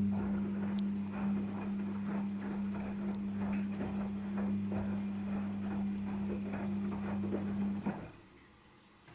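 Daewoo DWD-FT1013 washing machine at the start of a Cotton 40°C wash: a steady electrical hum with rapid, irregular clicking and knocking over it, which stops suddenly about eight seconds in.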